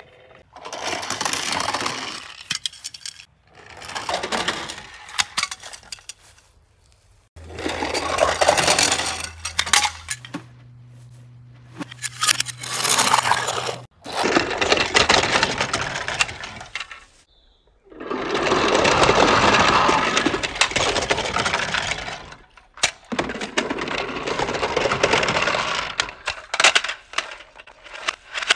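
Plastic toy cars and Duplo pieces clattering and scraping in repeated bursts of two to three seconds, with short pauses between them.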